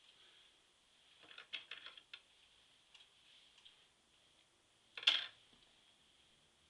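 Light clicks and clatter of parts being handled on a Singer treadle sewing machine: a quick run of clicks, a few faint ticks, then one sharper clack about five seconds in.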